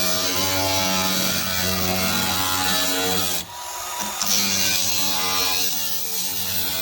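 A handheld power tool cutting the hood's sheet metal for a louver opening, its motor running at a steady pitch. It stops briefly about halfway, then starts again.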